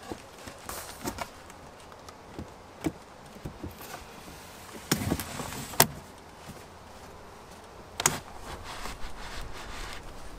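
Black corrugated plastic (coroplast) hive wrap being handled and slid down over a wooden beehive: scattered clicks, knocks and rustling of plastic against wood, loudest about five to six seconds in and again about eight seconds in.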